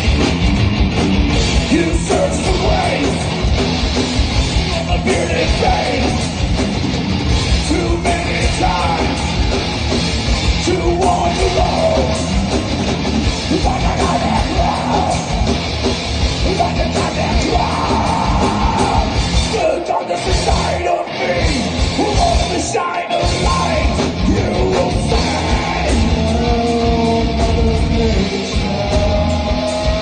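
Live rock band playing loud on stage: electric guitars and drums with a singer's vocals over them. The band stops short twice for a moment about two-thirds of the way through, then plays on.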